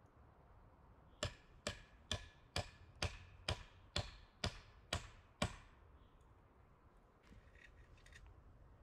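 Ten sharp strikes of a tool, evenly spaced at about two a second, each with a brief ring.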